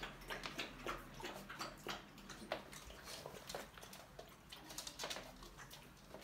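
Young Dogo Argentino moving about on a laminate floor and newspaper: faint, irregular light taps and rustles of its paws and claws, several a second.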